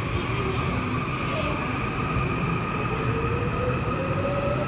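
Seoul Subway Line 4 electric train pulling out of the station: a rumble of wheels on track under steady high electric tones. From about three seconds in, the traction motors' whine rises in pitch as the train speeds up.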